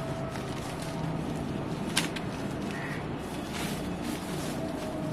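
Plastic packaging wrap rustling and crinkling as a soundbar is handled and slid out of it, with a sharp click about two seconds in.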